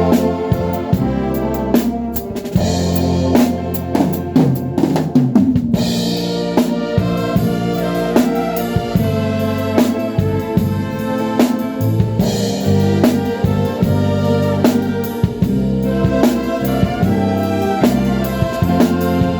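A live band playing with a drum kit keeping a steady beat, snare and bass drum hits, over sustained bass and melody lines.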